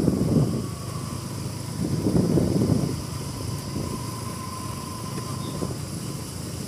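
Motorcycles running along at road speed: the Bajaj Pulsar NS200 carrying the camera, with a Yamaha R15 V4 alongside. Their engine and road noise swell in loudness near the start and again about two seconds in.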